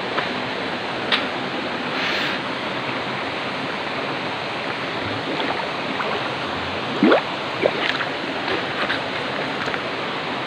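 Steady rush of a shallow river flowing over rocks, heard close to the water surface, with a few small splashes. About seven seconds in come two brief rising squeaks.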